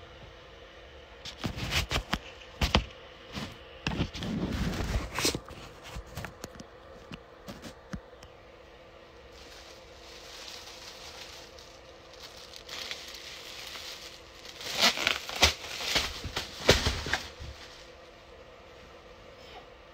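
Rustling and crinkling of bedding and handling noise in two clusters, the second as the comforter is pushed about by someone stirring and sitting up in bed. A steady hum runs underneath.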